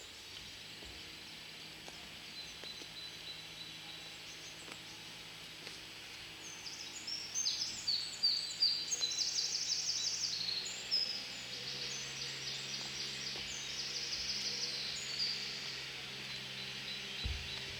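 Woodland birdsong: a steady chorus of distant birds, with one nearer bird singing a fast run of chirps and trills from about a third of the way in until near the end.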